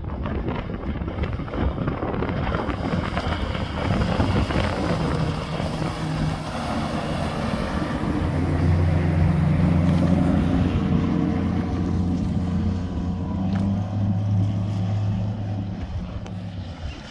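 Hurricane 187 deck boat's engine running at speed as the boat passes close by, its hum building from about a quarter of the way in, loudest through the middle and dropping off near the end. Wind buffets the microphone throughout.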